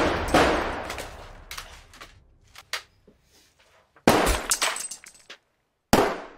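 Handgun shots, each with a ringing tail: two in quick succession at the start, then single shots about four and six seconds in.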